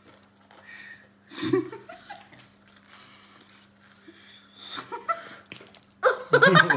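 Breathy blowing through pursed lips with a full mouth, trying to whistle: a short thin whistle tone comes through about four and a half seconds in. Laughter breaks out near the end.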